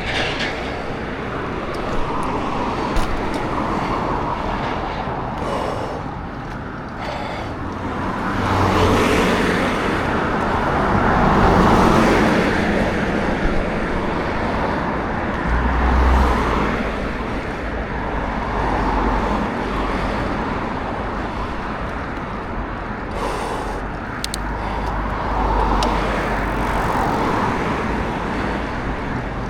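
Road traffic on a city street: motor vehicles passing, the noise swelling and fading, twice growing louder as a vehicle goes by.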